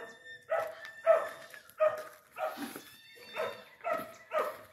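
A dog barking repeatedly, about eight short barks roughly half a second apart.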